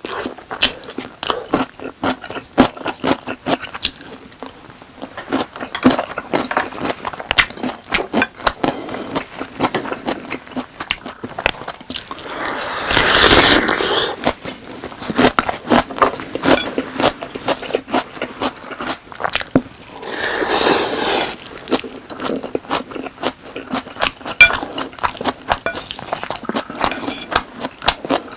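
Close-miked eating of sauced boneless fried chicken with rice: steady chewing, crunching and wet mouth clicks, with utensil scrapes. Two longer, louder rasping sounds, one about halfway through and one some seconds later.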